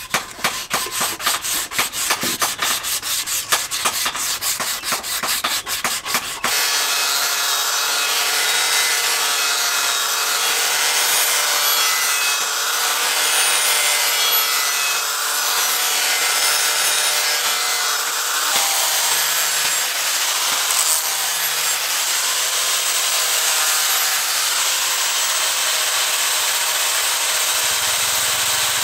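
Quick, repeated rubbing strokes on a wooden axe handle. About six seconds in, an angle grinder with a sanding disc starts up against the flat steel axe head, forged from a leaf spring, and grinds steadily.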